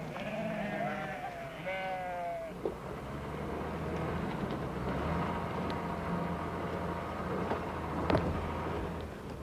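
Sheep or goats of a herd bleating several times in the first two seconds or so, over a steady low hum that continues after the calls stop, with a few sharp clicks later on.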